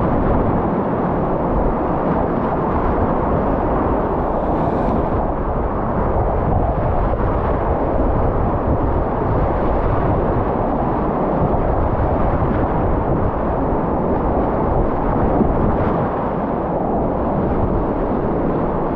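Whitewater rapids rushing loud and steady around a whitewater kayak, with the current breaking over the bow.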